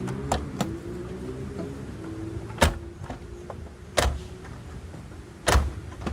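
A motor running steadily, its pitch slowly rising, broken by several sharp knocks or clanks. The loudest come about two and a half, four and five and a half seconds in.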